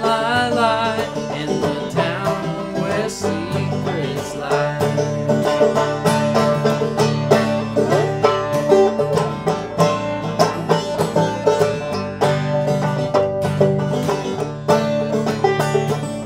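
Banjo and Taylor koa acoustic guitar playing an instrumental break in a bluegrass-style tune, with quick picked banjo notes over strummed guitar chords. A man's sung note with vibrato ends within the first second or so.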